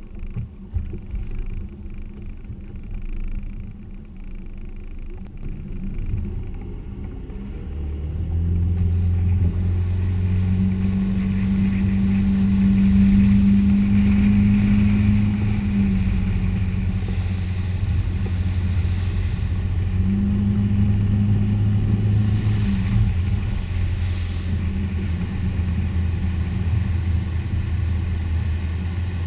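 Motorboat engine running under way, heard from the bow. The engine note steps up about eight seconds in as the boat picks up speed, eases off, rises again briefly, then holds steady.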